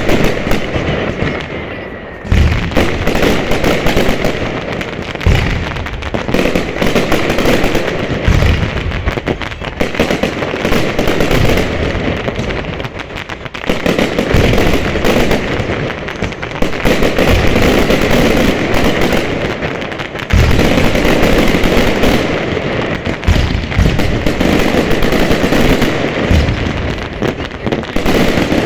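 Fireworks going off: dense, continuous crackling and popping, with deeper booms every few seconds.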